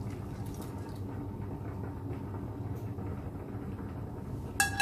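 Steady low kitchen hum while sugar syrup is strained onto grated coconut. Near the end there is one sharp metal clink that rings briefly, from cookware being knocked or set down.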